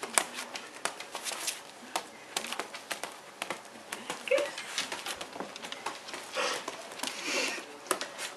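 Dogs' feet tapping and scuffling on a hardwood floor, with irregular clicks, as a small dachshund in soft dog boots and a larger dog move about together.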